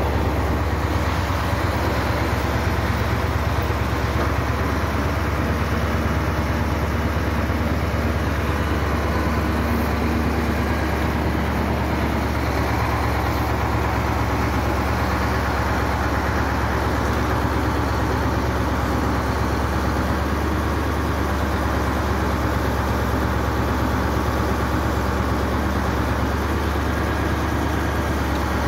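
Heavy truck engine idling steadily with a low, even hum, the engine of the crane holding a concrete well ring on its chains.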